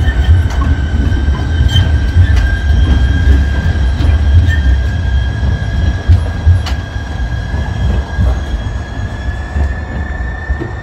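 TriMet MAX light-rail trains rolling past, wheels giving a steady high squeal that creeps slightly higher in pitch. A few sharp clicks from the wheels over the track come through, over a heavy, uneven low rumble.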